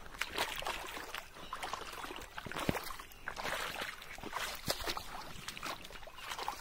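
Footsteps wading through a shallow stream over stones and wet leaves, with irregular splashes and sloshing water.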